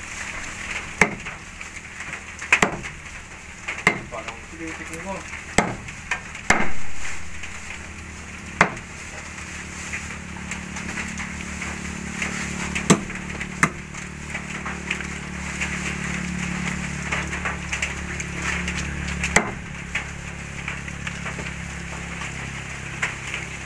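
Kitchen work over a fire: a string of sharp knocks and clatters over a steady frying hiss, with one louder swell about six and a half seconds in.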